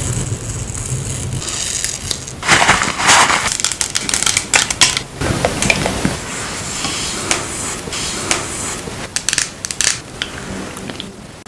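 Close-up crackling, tapping and clicking from skincare products and their containers being handled. The densest, loudest crackling comes early on, with scattered sharp clicks after it.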